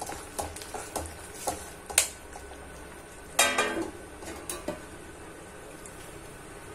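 Metal spoon stirring and knocking against the side of a pan of moong dal, with several light knocks in the first two seconds. About three and a half seconds in, a steel spoon clatters on a steel plate with a short metallic ring, followed by a couple of small clinks.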